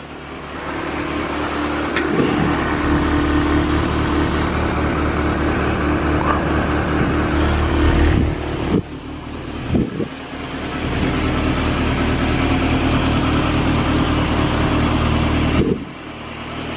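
Morris 8 Series 1's four-cylinder side-valve engine idling steadily, with a brief break about halfway. It sounds all right, a pretty sweet-sounding engine.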